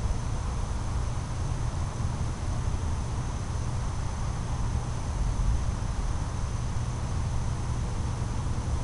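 Insects trilling in one steady high tone over a constant low rumble; nothing starts or stops.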